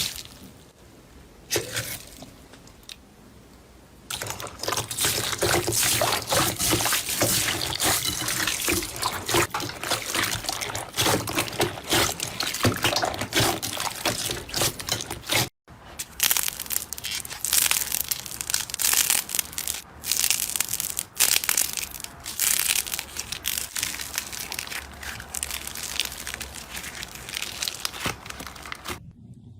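Slime being squished and pressed by hand, a dense run of wet clicks, pops and crackles. The first few seconds are quieter, and there is a sudden short break about halfway through.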